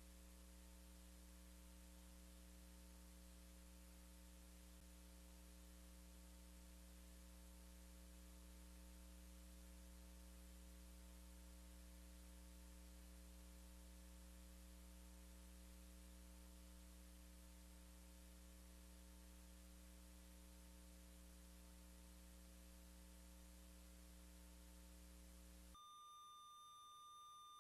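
Near silence: a faint steady hum. Near the end it gives way to a faint, steady high tone.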